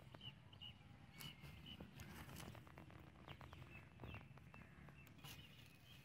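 Faint handling noises: scattered small clicks and rustles as a caught dove is held and turned in the hands over grass, with short faint bird chirps repeating now and then.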